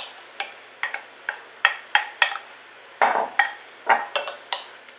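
Wooden spoon knocking and scraping against a ceramic bowl and a glass mixing bowl as shredded cheese is pushed out into batter. It makes a series of sharp taps, about two a second, with a short scraping rattle about three seconds in.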